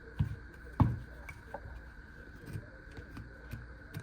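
Folding pocket knife cutting material on a desk: two sharp knocks, about a quarter-second and nearly a second in, the second louder, then lighter scrapes and clicks of the blade.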